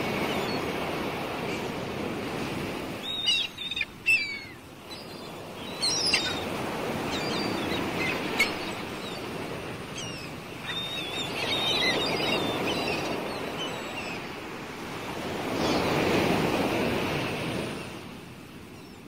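Sea waves washing in, swelling and ebbing every few seconds, with birds chirping over them; the sound fades out near the end.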